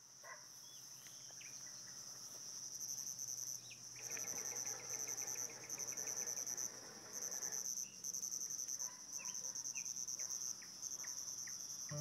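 Insects chirping in a steady high-pitched stream of rapid pulses that come in trains with short gaps, with a few short bird chirps; a soft hiss swells for a few seconds in the middle.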